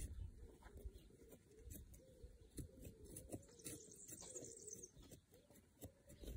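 Faint outdoor quiet with a dove cooing softly over and over, and small scattered clicks and rustles from hands working soil and plastic pots.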